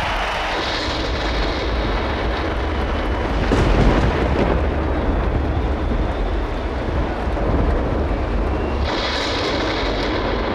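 Steady roar of a large stadium crowd, with a low rumble underneath.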